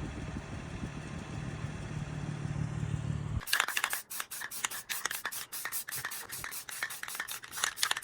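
Infiniti G35's VQ35DE V6 idling steadily through a Tomei exhaust. About three and a half seconds in it cuts off abruptly, and a quick, irregular run of light clicks and scrapes follows.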